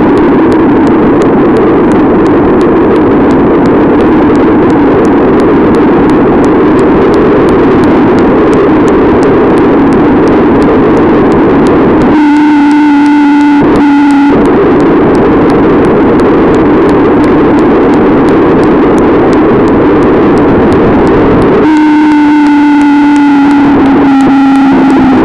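Loud, distorted wind buffeting on a bicycle-mounted 808 keychain camera's microphone during a fast downhill ride. Twice, for about two and three seconds, the rush drops away and a steady low hum with overtones takes over.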